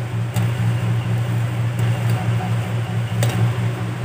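Steady low machine hum, with two faint clicks, one about a third of a second in and one a little after three seconds.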